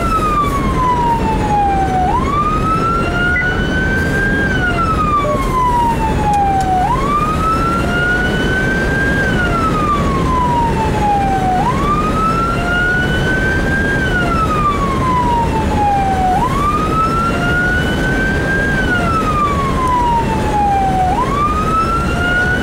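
Fire department response vehicle's siren on wail, rising and falling slowly about every five seconds, heard from inside the vehicle over steady engine and road noise.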